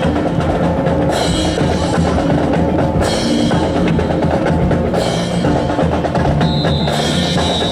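Music with drums and percussion, with a high held tone near the end.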